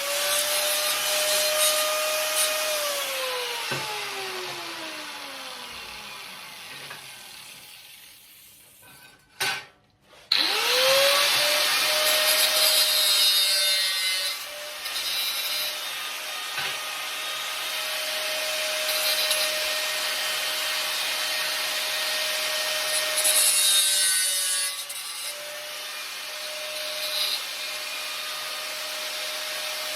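Angle grinder cutting steel scrap into gusset plates: its whine spins up, then falls away as it winds down over a few seconds. About ten seconds in it starts again and cuts steadily, with a few brief dips in load.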